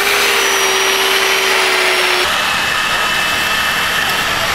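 Chainsaw cutting into a block of ice: the motor revs up and then holds a steady high note over a hiss of shaved ice. About two seconds in, the motor note drops out and a steady hiss carries on.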